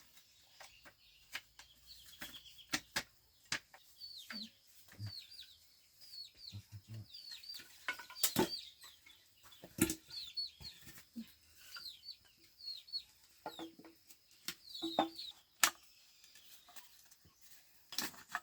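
Chickens clucking and chirping in many short, high, falling calls, with scattered sharp knocks.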